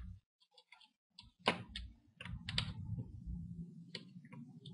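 Scattered light clicks and taps of small hand tools, an electronic screwdriver and tweezers, handling a just-removed screw at a laptop's plastic screen bezel. A faint low hum sets in about halfway through.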